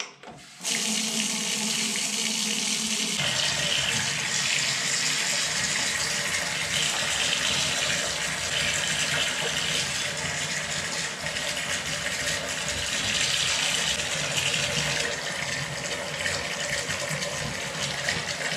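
Water running steadily from the bath spout of a Grohe Euphoria SmartControl thermostatic shower system into the bathtub, starting about half a second in and changing in tone about three seconds in. The mixed flow is being measured with a thermometer while the thermostat is set to 38 °C.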